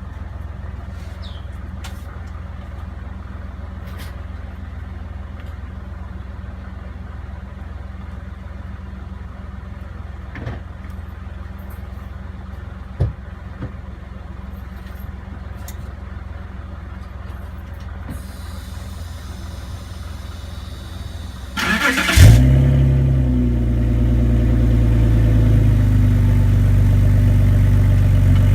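BMW E46 328i's straight-six engine being started near the end: a short crank, then it catches with a brief rev flare and settles into a steady idle. Before that, a steady low hum with a single knock about halfway.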